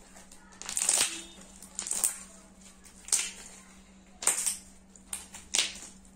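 Homemade slime squeezed and stretched in the hands, popping its trapped air bubbles: about six short, sharp squelching pops, roughly one a second.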